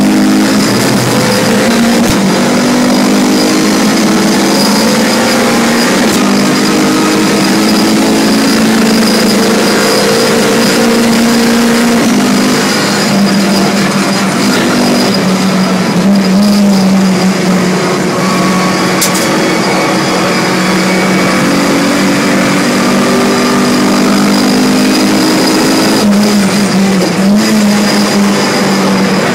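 Tuned Renault Clio's engine heard loud from inside the cabin while the car is driven hard on a race track: the engine note climbs and drops back again and again as it accelerates through the gears and lifts for corners.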